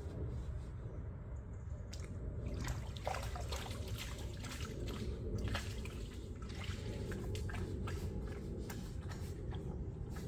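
Rainwater dripping and splashing in a pedestrian underpass: irregular small drips and splashes over a steady low rumble.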